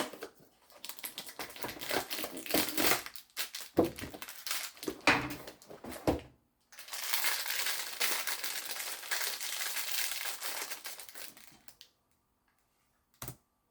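Crinkling and crumpling of advent calendar packaging being opened and handled, dense and crackly for several seconds and then a steadier crinkle, followed by a single sharp click near the end.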